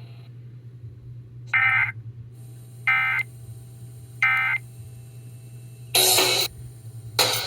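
Three short Emergency Alert System end-of-message data bursts: screeching digital tones, evenly spaced about a second and a half apart, that mark the end of the flash flood warning. A burst of noise follows, music starts near the end, and a steady low hum runs underneath throughout.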